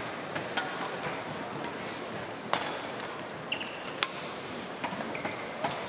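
Badminton rackets striking the shuttlecock in a rally, a few light hits and two sharp, loud ones about a second and a half apart, over the steady murmur of an arena crowd.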